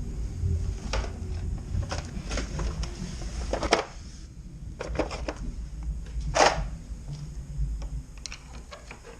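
Scattered clicks and light knocks of hands working at a car's door edge, prising out the rubber cover that hides the door handle's lock screw.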